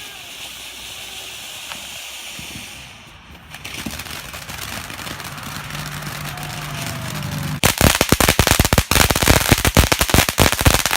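A "Mr. Crackle" consumer firework hissing, then, about seven and a half seconds in, breaking into a loud, dense, rapid crackling of many small bangs.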